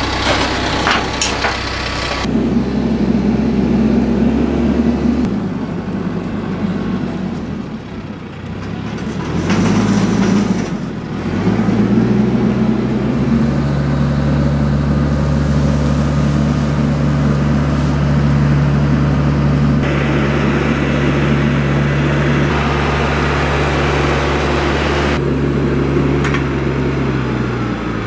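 Diesel tractor engine running under changing throttle. Its pitch drops about five seconds in, dips and picks up again, then climbs to a steady higher speed for most of the stretch before easing off near the end. A few sharp clanks come in the first couple of seconds.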